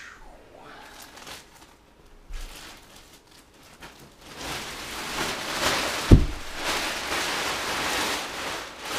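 Clear plastic wrapping being pulled off a vacuum-packed foam mattress: faint rustles at first, then continuous crinkling and rustling of the plastic from a bit past the middle, with a single sharp thump about six seconds in.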